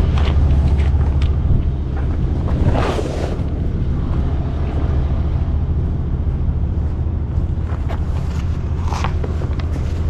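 Heavy vinyl flatbed tarp crinkling and rustling as it is handled, loudest about three seconds in and again near nine seconds, over a steady low rumble.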